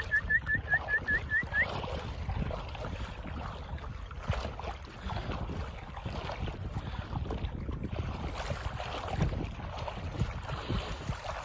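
Wind on the microphone over water splashing and lapping around swimming Newfoundland dogs. In the first second and a half, a quick run of about eight short rising chirps.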